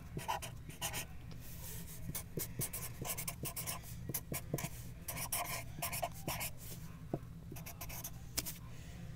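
A pen scratching on paper in short, irregular strokes, over a steady low hum.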